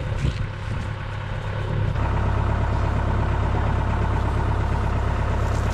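John Deere 5083E tractor's four-cylinder diesel engine idling steadily, louder from about two seconds in.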